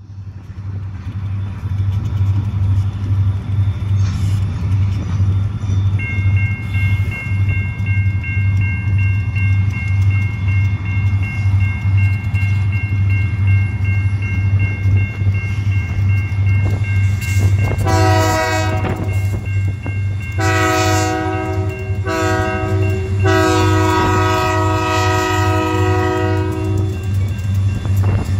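Union Pacific diesel locomotive sounding its air horn for the grade crossing in the standard long, long, short, long pattern, starting about two thirds of the way in. Under it, the crossing's warning bell rings steadily from about six seconds in, over a constant low rumble.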